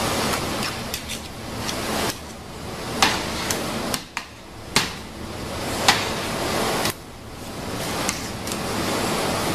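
Steady workshop machinery noise that drops away abruptly a few times, with several sharp clicks of a metal spatula tapping and scraping against a metal mold rim as surimi fish paste is spread into a kamaboko mold.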